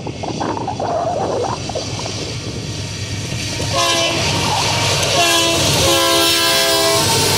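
Union Pacific GE AC44CW diesel locomotive's multi-note air horn sounding three blasts for the grade crossing, the last the longest, over the rising rumble of the approaching train.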